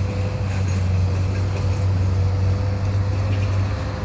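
Double-stack container cars rolling slowly past on the rails: a steady low rumble with a faint steady whine over it.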